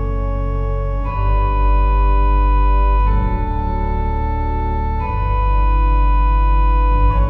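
Church organ playing the closing voluntary after the blessing: slow, loud held chords over a deep bass, the chord changing about every two seconds.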